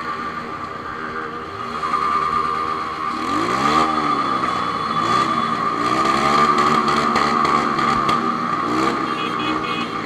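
Honda CB1000 motorcycle's inline-four engine revved up and down about three times, with a steady high-pitched whine running under it that gets louder about two seconds in. This is the noise that the owner is showing.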